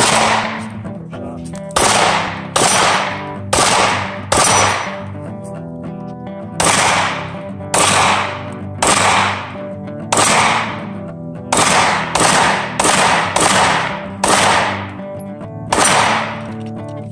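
P80-frame Glock 17 9mm pistol firing about fifteen shots, singly and in quick pairs with uneven pauses, each a sharp crack with a short echoing tail. Background music plays steadily underneath.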